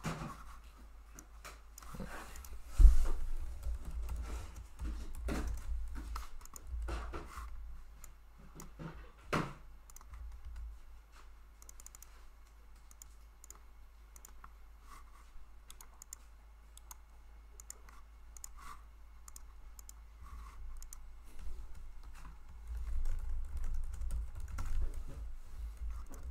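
Computer keyboard typing and clicking in irregular spurts, with a few low thumps, the loudest about three seconds in.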